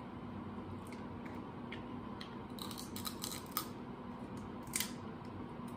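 Crab leg shells cracking and snapping as they are pulled apart by hand: scattered sharp cracks, a cluster of them in the middle and a louder single crack near the end, over a steady low room hum.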